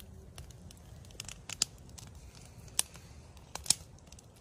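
Scattered sharp clicks and crackles over a low background, with louder snaps about a third of the way in and near the end.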